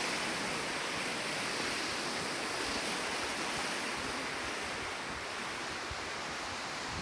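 Steady rushing of water from a creek and waterfall, a little quieter in the last couple of seconds.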